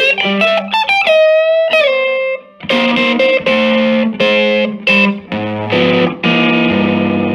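Electric guitar through a Silvertone 1484 tube amp with channel 1 turned all the way up, played on the neck pickup. It plays single-note lead lines with string bends, then after a short gap a run of choppy chords, ending on one chord left ringing.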